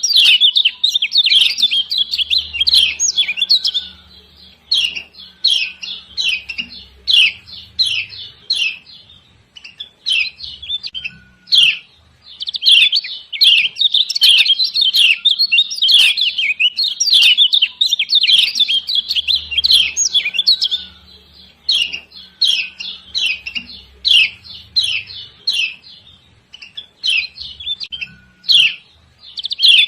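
Kecial kuning (Lombok white-eye) giving rapid, excited 'ciak ciak' chirps: dense runs of short high calls, thinning to scattered chirps for a few seconds, then crowding together again. It is a female's call, used as a lure to make male birds start singing.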